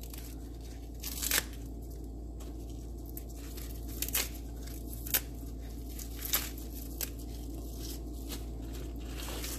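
Crisp tearing and snapping of leafy greens as the leaves are stripped off their thick stalks by hand, heard as several short, sharp crackles over a steady low hum.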